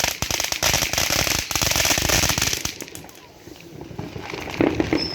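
A firework going off in a fast run of crackling pops, dying away about three seconds in.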